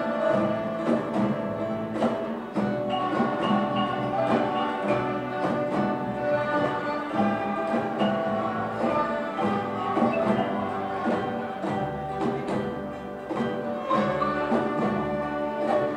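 Children's orchestra playing live: bowed violins and cello with flutes, over plucked classical guitars and double bass, in steady held notes.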